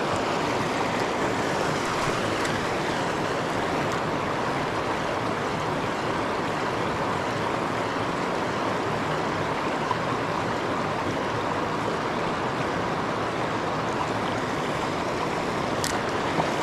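River rapids rushing: a steady, even noise of fast-flowing water over rocks.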